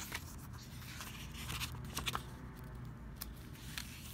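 Thin pages of an R.L. Allan Brevier Clarendon KJV Bible being turned by hand: soft paper rustling with a handful of light, sharp flicks as the leaves turn over.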